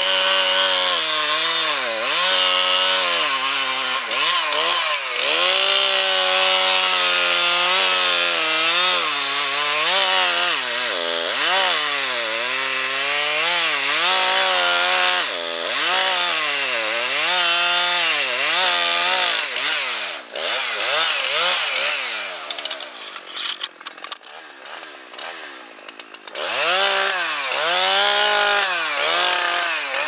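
Large two-stroke Husqvarna chainsaw cutting through a big poplar trunk, its engine note dipping and recovering about once a second as the chain loads up in the cut. About two-thirds of the way through the saw eases off to a lower, uneven sound for a few seconds, then revs back up into the cut.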